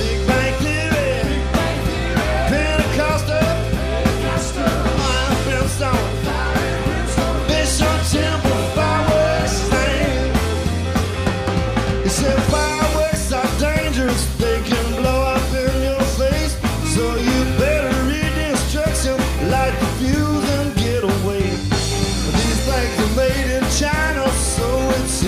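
Live band playing an upbeat rock song with a steady driving beat.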